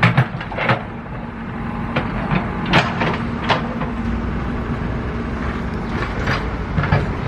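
Repair work: a steady low machine hum with scattered sharp knocks and clacks, the loudest a few seconds in.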